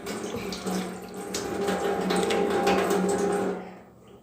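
Water running steadily, starting at once and stopping shortly before the end.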